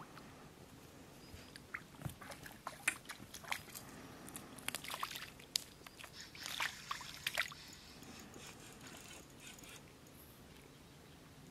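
A small hooked fish splashing at the water's surface as it is reeled in on a spinning reel, heard as a run of short splashes and clicks, dying down near the end as it is lifted out of the water.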